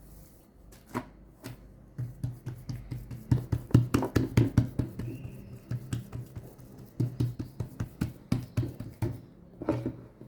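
Hands working msemen dough on a work surface: a run of irregular soft knocks and slaps, densest in the middle, over a low steady hum.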